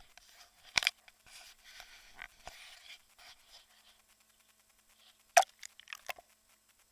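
Water splashing and lapping close to the microphone, with a sharp knock about a second in and another about five seconds in, and a crackling patter between them.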